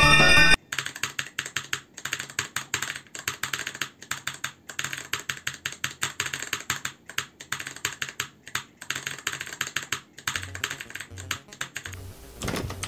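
Typing on an Altec Lansing ALGK8614 mechanical keyboard with clicky blue switches: a long run of rapid, uneven keystroke clicks, several a second. A burst of music cuts off abruptly about half a second in, just before the typing starts.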